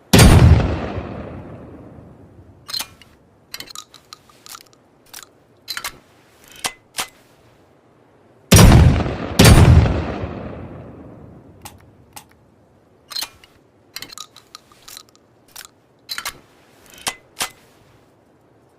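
Double-barrel shotgun sound effect: a single heavy blast with a long echoing tail right at the start, then a run of small metallic clicks and clacks like the gun being handled and reloaded. About halfway through come two blasts about a second apart, one per barrel, each fading slowly, followed by more handling clicks.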